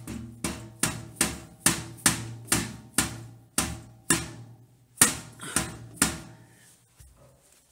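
A hammer striking a steel dog crate's floor grate through a towel, driving it back inward. There are about fourteen blows at two to three a second, each leaving a short metallic ring, with a brief pause around four seconds in, and they stop at about six seconds.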